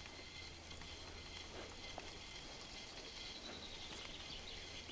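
Faint river ambience from a drifting inflatable boat: soft water trickling and lapping with a light crackle, a thin steady high tone above it and a few small ticks.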